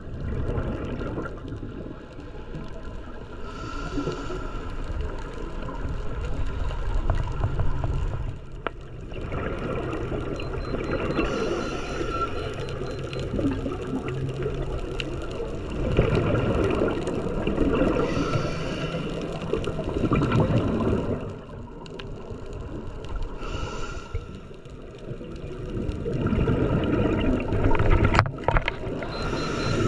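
Underwater camera sound of a scuba diver's breathing: the regulator's exhaled bubbles gurgle past the housing in surges that return every few seconds, over a steady low underwater rumble.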